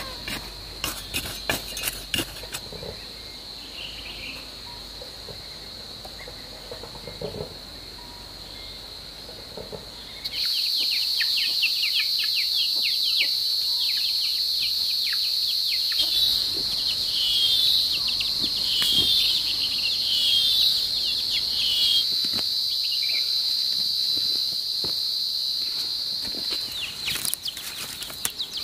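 A steady high-pitched chorus of insects droning, much louder from about ten seconds in, with a few bird chirps over it in the middle and some light taps and rustles near the start.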